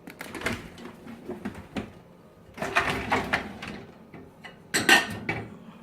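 Dishes and the dishwasher rack knocking and clinking as washed crockery is handled and taken out, in several clusters, with the loudest knock near the end.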